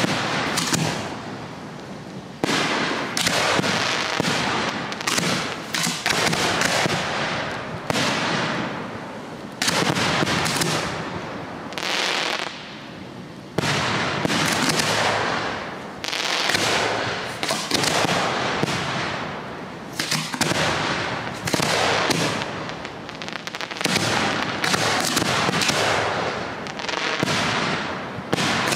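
Aerial firework shells bursting one after another, about one sharp bang a second, each fading out over a second or two.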